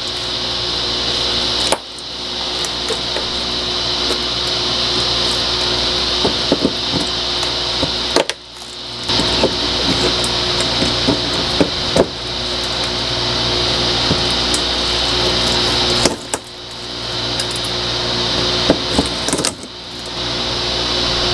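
A steady fan-like hiss with a low hum. It cuts out abruptly three times and swells back each time, under scattered light clicks and snips of cutters working at a rusted brake-line union.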